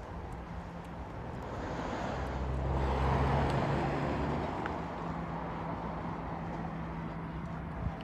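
A motor vehicle drives past. Its engine and tyre noise swells to its loudest about three seconds in and then fades, and a low engine hum carries on afterwards.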